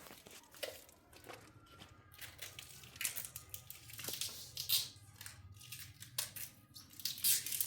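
Irregular crinkling, scraping and rustling, as of material being handled, crushed or torn, with a few louder strokes about midway and near the end.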